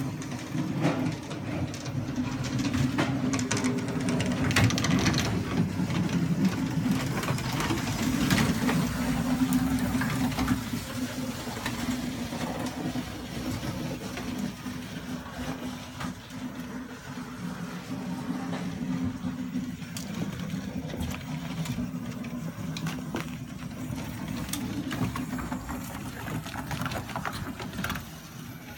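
A small motor running with a steady low hum and light clicks and rattles, louder for the first ten seconds or so.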